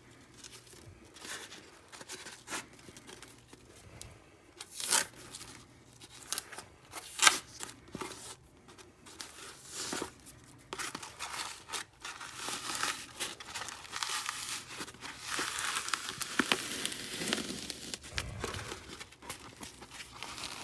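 Laminated polyethylene backing layers of an eSAPI armor plate being peeled and torn apart by hand. There are separate sharp rips with crinkling, the loudest a few seconds in, then a longer run of tearing in the second half.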